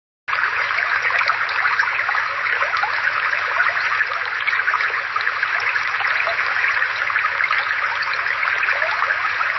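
Water flowing in a small brook: a steady babbling trickle that starts suddenly just after the beginning.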